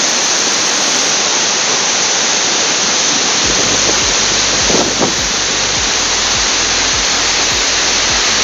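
Waterfall in full flow: a loud, steady rush of falling water. From about three and a half seconds in, a low, regular thumping sits underneath.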